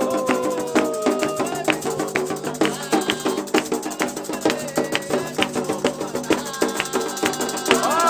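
Candomblé ritual music: drums and a rattle keep a fast, dense rhythm, with voices holding long sung notes at the start and again near the end.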